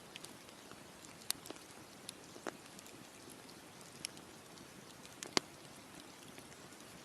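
Campfire crackling: irregular sharp pops and snaps of burning wood over a faint steady hiss, the loudest pop about five seconds in.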